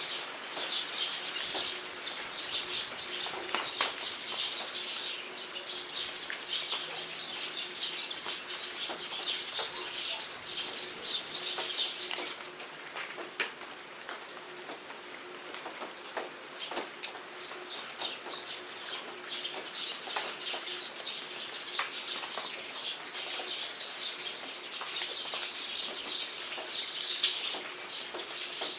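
Steady rain with individual drops ticking, and a chorus of many small birds chirping over it. The chirping thins out for several seconds near the middle, then picks up again.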